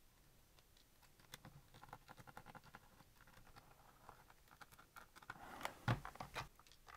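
Light clicks and rattles of small screws and the plastic and metal carry handle being handled as it comes off a Sony TC-40 cassette recorder. A few louder knocks near the end as the recorder body is set down on the table.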